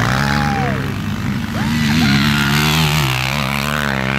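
Quad ATV engines running hard under load as they climb a steep dirt hill, the pitch holding fairly steady with slight wavers.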